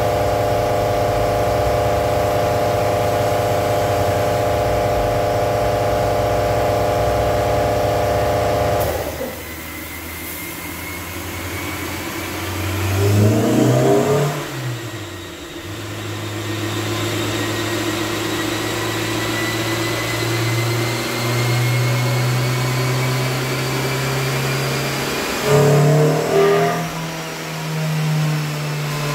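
Honda S2000's four-cylinder engine running on a freshly installed Haltech plug-and-play ECU and its base map. It holds a steady note for about the first nine seconds, then settles lower and is revved briefly twice, about 13 and 26 seconds in.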